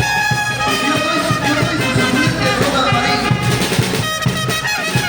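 Brass band playing, trumpets leading over a steady low drum beat. A new phrase of held trumpet notes comes in about four seconds in.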